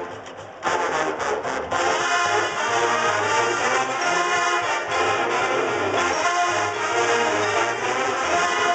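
Marching band playing, the brass section of trumpets and trombones sounding full chords with percussion. A short hush in the first moment, then the full band comes back in.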